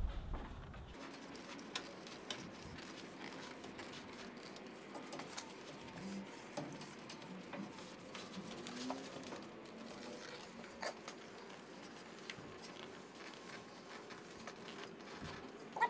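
Faint scratching and scattered light clicks of a rubber garage door bottom seal being pushed by hand along its metal retainer channel, fitted dry without soap.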